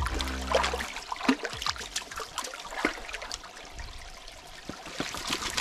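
English setter wading and drinking in a shallow pool, with irregular small splashes and lapping of water.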